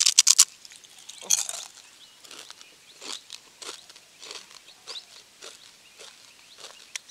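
A crisp achappam, a deep-fried rice-flour rosette cookie, bitten with a loud crackling crunch. Another crunch comes about a second later, then a run of smaller crunches as it is chewed.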